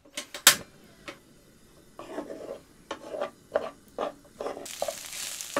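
Two sharp clicks as the gas stove is lit, then a spatula scraping and stirring fried rice in a pan. Near the end a steady sizzle starts as the pan heats up.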